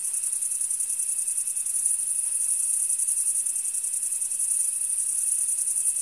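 Crickets chirping in a steady, high-pitched chorus of rapid pulses.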